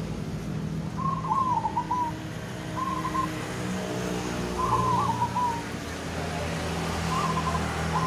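Zebra dove (perkutut) cooing: four short phrases of its stepped, gurgling call, a second or two apart, over a steady low hum.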